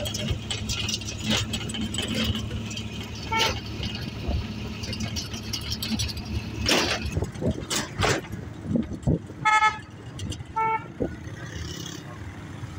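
Vehicle engine running steadily while driving, with road rumble and knocks from the open cargo bed. A vehicle horn beeps a few short times, the clearest two about three-quarters of the way through.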